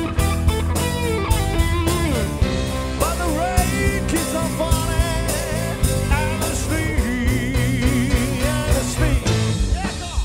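Rock band playing live: drum kit, bass guitar and electric guitars, with a lead line on top that bends and wavers in pitch.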